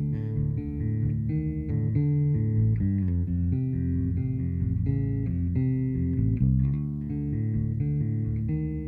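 Instrumental opening of a band's studio recording: guitar and bass guitar playing a riff of quickly changing notes, with no vocals yet.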